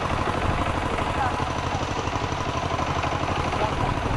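An engine running steadily with a fast, even low pulse.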